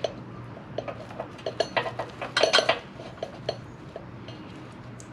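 Metal clinking and rattling of a 420 roller chain and hand tools being handled, a quick run of light clinks with the loudest cluster about two and a half seconds in.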